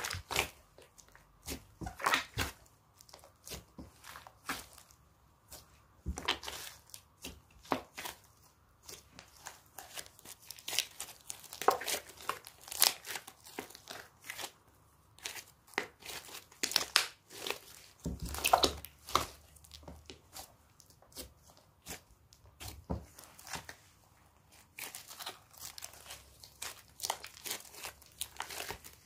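Slime mixed with crushed eyeshadow being worked by hand, giving irregular sticky crackles and pops, some louder than others.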